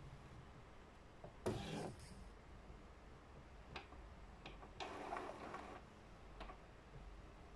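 Epson XP-247 inkjet printer powering up: a short mechanical whir about a second and a half in, scattered clicks, and another whir of about a second near the middle.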